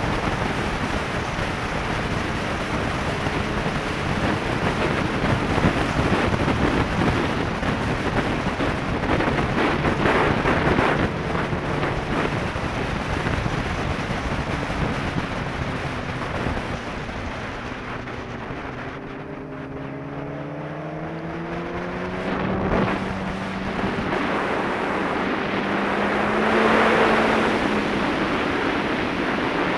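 Sport bike riding at speed: steady wind rush over the microphone with the engine running underneath. About two-thirds of the way through the wind eases and the engine note falls as the bike slows, then both pick up again.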